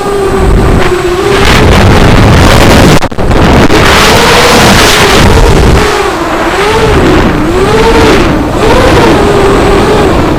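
FPV racing quadcopter's motors and propellers whining at high throttle, the pitch swooping up and down again and again as the throttle is worked, under heavy wind rush on the onboard microphone. The sound dips sharply for a moment about three seconds in.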